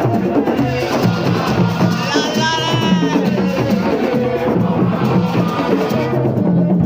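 Music with drums playing a steady rhythm and a singing voice over it.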